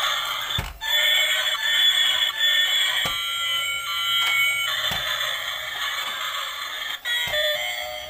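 Tinny electronic melody with beeping, alarm-like tones from a battery-operated light-up toy train's small built-in speaker, with no bass. Four soft knocks come through it.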